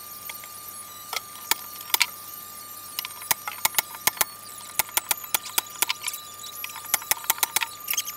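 Pneumatic nailer firing brads into a 1/4-inch luan back panel on a plywood cabinet: about twenty sharp shots, many in quick runs of several a second, from about a second in until shortly before the end.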